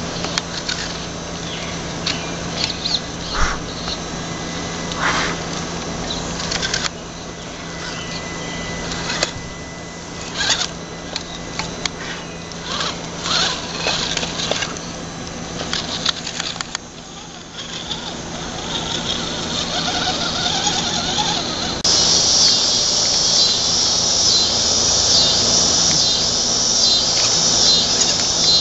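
Electric RC rock crawler's motor and gear drivetrain whining in short bursts as it climbs, with its tyres and chassis scraping and knocking against rock and wood. About two-thirds of the way through, a loud, high-pitched insect chorus starts up and continues.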